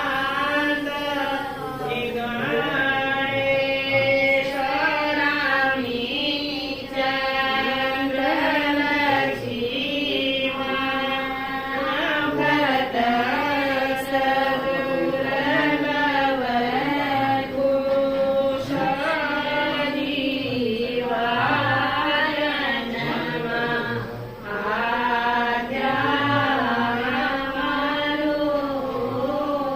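Voices chanting a Hindu ritual chant in long held notes, the pitch bending up and down, with short breaths between phrases.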